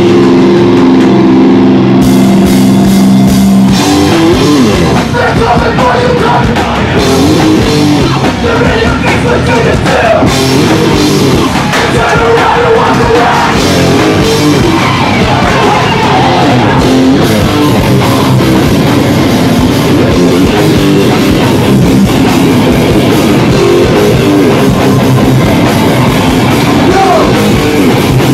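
Hardcore punk band playing live at full volume, with distorted guitars, drums and vocals. A steady held chord rings for about the first four seconds, then the full band comes in.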